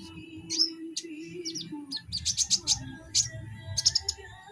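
Young kolibri ninja sunbird (konin) calling in short, sharp high chirps, in bursts with a quick run of chirps about halfway through, over a faint steady hum.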